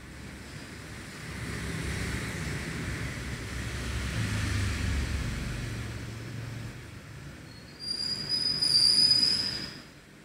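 Low rumble of a passing vehicle that swells and fades. Near the end a steady high-pitched squeal sounds for about two seconds, like brake or wheel squeal.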